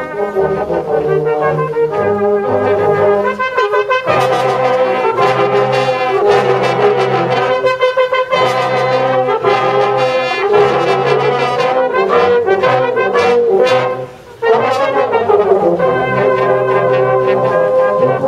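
A brass band playing a piece together: cornets, tenor horns, euphoniums, trombones and basses sounding in full harmony, with a short break in the music about three-quarters of the way through.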